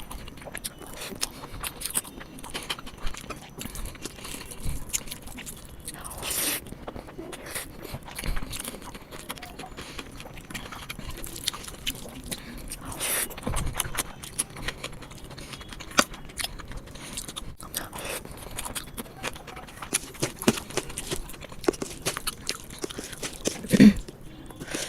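Close-up chewing and mouth sounds of someone eating rice and chicken curry: a steady run of small wet clicks and soft scrapes, with a couple of louder brief noises about six and thirteen seconds in.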